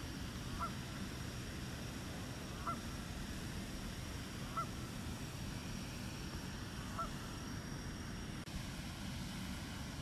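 A bird calling in the distance: four short single calls about two seconds apart, over a steady low background rumble.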